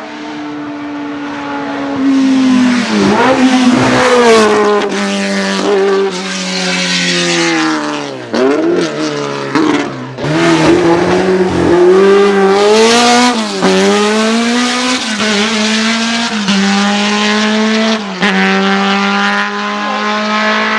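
Racing sports prototype's engine at full throttle up a hillclimb, its pitch falling and climbing again several times as it brakes, shifts and accelerates, with sharp pops from the exhaust.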